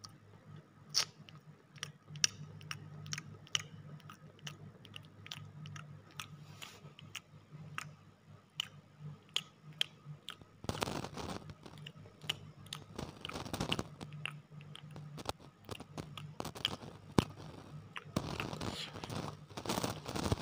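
Close-miked chewing and crunching of a deep-fried, batter-coated pakoda: sharp crisp crunches at first, then denser, louder chewing from about halfway through and again near the end.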